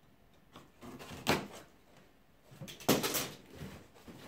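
Cardboard shipping box being handled and tipped over: cardboard scraping and knocking, with two loud sharp knocks about a second in and about three seconds in, and lighter clicks between.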